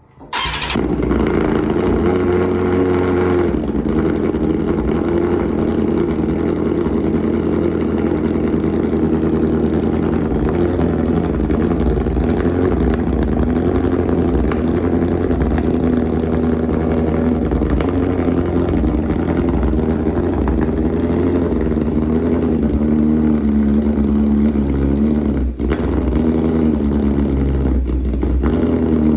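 BMW M1000RR's inline-four engine running through an aftermarket Arrow exhaust, loud and steady, its pitch wavering slightly, with one brief dip about three quarters of the way through.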